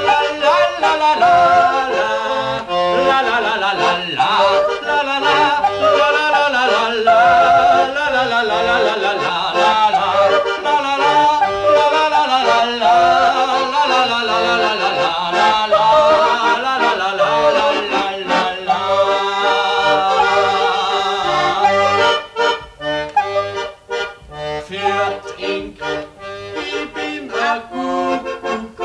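Instrumental interlude of a folk-style song: a lively melody over a steady accompaniment. About two-thirds of the way through, the playing changes to short, detached notes.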